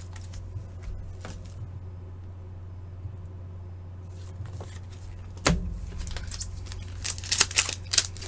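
Faint handling of plastic card holders with a sharp click about five and a half seconds in, then the crinkling and tearing of a hockey card pack's wrapper near the end, over a low steady hum.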